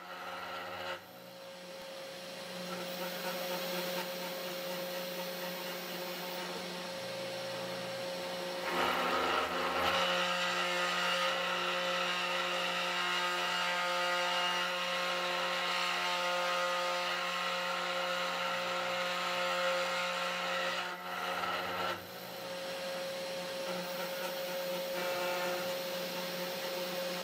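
3018 Pro Max desktop CNC router milling a relief into beech wood: the spindle motor runs with a steady hum while the bit cuts the wood. The cutting noise grows louder about a third of the way in and drops back shortly before the end.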